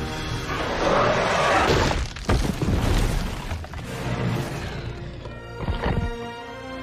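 Film soundtrack of a dinosaur fight: orchestral score mixed with heavy rumble and crashing impact effects, with a few sharp thuds in the middle. Near the end the effects drop away, leaving held tones of the score.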